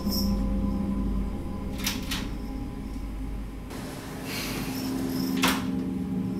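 Hotel room door being opened: two latch and handle clicks about two seconds in, then a hiss as the door swings, ending in a sharp click near the end, over a low steady drone.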